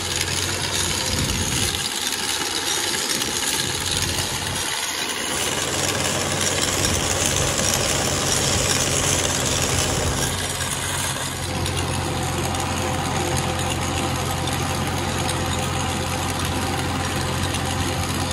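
Sonalika tractor's diesel engine running steadily under load, driving a trencher that digs a pipeline trench. Its digging wheel throws soil with a rushing, rattling hiss that is strongest near the middle.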